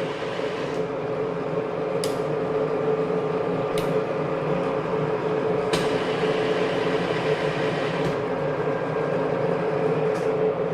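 Sharp horizontal/vertical milling machine running with its table on rapid traverse: a steady mechanical hum with a whining tone and a faint click about every two seconds.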